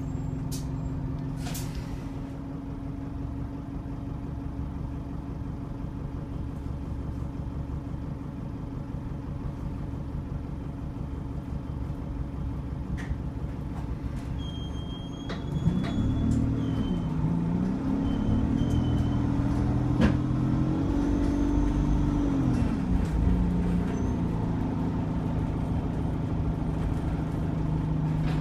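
Bus engine and transmission heard from inside the passenger saloon, running steadily at first. About halfway through it gets louder and its pitch climbs and drops several times through the gear changes as the bus pulls away, then settles to a steady drone.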